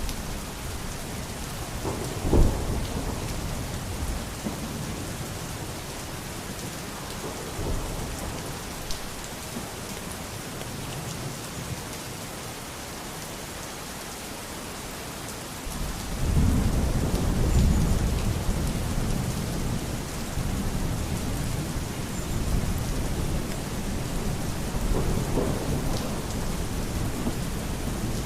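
Steady rain falling, with thunder: a sharp clap about two seconds in, then a long, low rolling rumble that begins a little past halfway and dies away slowly.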